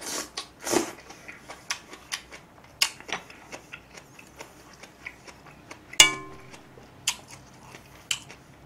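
Close-miked eating: a slurp of hot stew from a small plate at the start, then chewing with many small wet mouth clicks. About six seconds in there is a single ringing clink of tableware.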